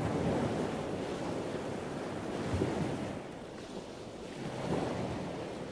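Wind and sea wash: a steady rushing noise that swells and eases a few times.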